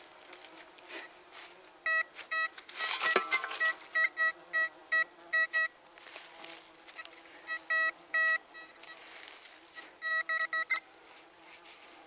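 Metal detector beeping in short repeated tones, in three bursts, as it is swept over a buried metal target and responds to it. A short burst of noise comes about three seconds in.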